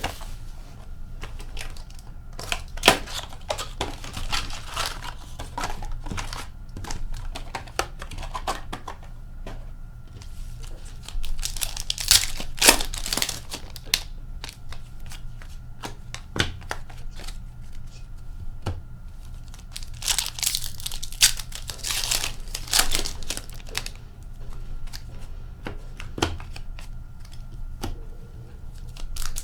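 Plastic wrapping and card packs being torn open and crinkled by hand, in irregular bursts of crackling and rustling with short pauses between.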